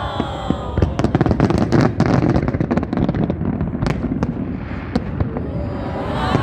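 Fireworks display: a dense run of sharp crackling bursts about a second in, over a continuous low rumble of booms, thinning to scattered cracks after a couple of seconds.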